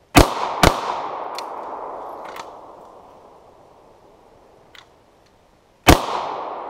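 Two pairs of shots from a 9mm Beretta 92FS pistol, each pair fired quickly after a draw. One pair comes right at the start and one near the end, and the first pair's report echoes and fades over a few seconds. The first shot of each pair is fired in the pistol's heavier double-action mode and the second in single action.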